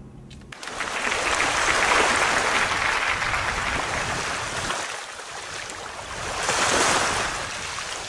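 A loud, even rushing noise with no clear pitch. It sets in about half a second in, eases a little around five seconds and swells again near seven seconds.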